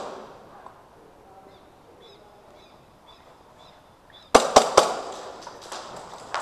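Airsoft gunfire: three loud, sharp pops in quick succession about four seconds in, followed by quieter scattered cracks and knocks. Before that, faint repeated high chirps.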